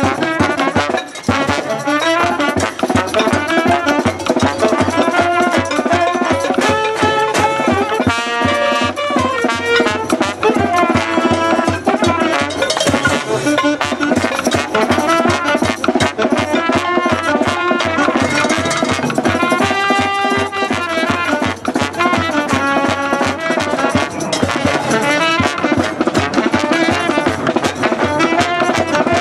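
Music played on brass instruments over steady drumming, loud and without a break.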